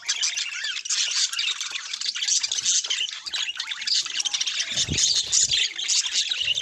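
Budgerigars chattering, a continuous stream of fast, high chirps, warbles and squawks. A brief low thud sounds about five seconds in.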